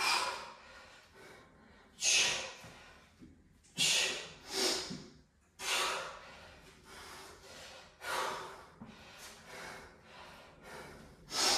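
A man breathing hard under exertion during a set of kettlebell lunges: sharp, noisy breaths out every couple of seconds, two close together about four to five seconds in.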